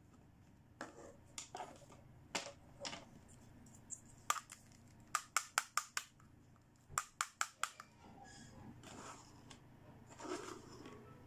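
Pink plastic toy stethoscope being handled and put together: sharp plastic clicks and taps, two quick runs of four or five clicks in the middle, then softer plastic rubbing near the end.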